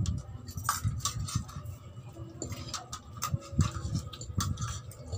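Close-up eating sounds: chewing of noodles and rice, with irregular clicks and clinks of a spoon and fork against the plate and glass bowl.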